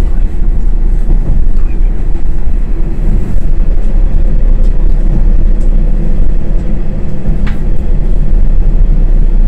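Interior sound of a diesel railcar under way: a steady, loud low rumble, with a faint steady hum over it and an occasional light click.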